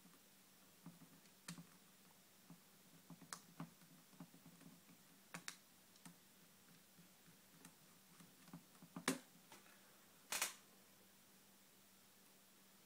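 Faint, scattered small clicks and taps from a mini screwdriver and the plastic parts of a netbook's screen lid as two small screws are driven into the screen frame. A louder click comes about nine seconds in, and a short scrape about a second later.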